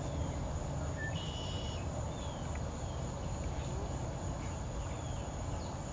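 Outdoor evening ambience: a steady high-pitched insect drone, with a few short falling bird chirps over a low rumble of background noise.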